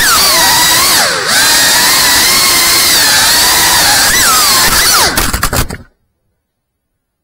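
FPV quadcopter's brushless motors whining loudly, their pitch sliding up and down with the throttle and dipping briefly about a second in. Near the end the whine stutters and then cuts off abruptly.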